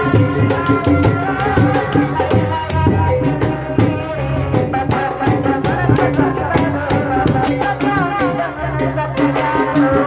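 Live Sundanese street procession music for kuda renggong, played by a tanji group: a rattle shaking a fast, even beat over drums, with a wavering melody line on top, played through a loudspeaker.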